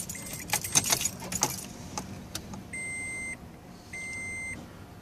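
Keys jangling and clinking for the first second and a half. Then, about halfway in, the 2005 Toyota Tundra's electronic warning chime begins: evenly spaced single-pitch beeps, each about two-thirds of a second long, repeating a little more than once a second.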